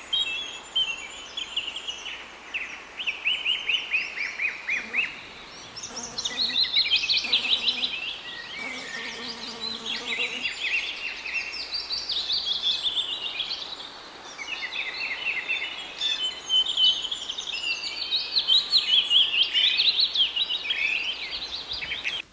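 Songbirds singing: a dense chorus of quick chirps and trills, several birds overlapping.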